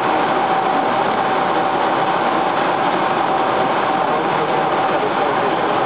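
Loud, steady machine-like noise with a constant high hum running through it, unchanging throughout.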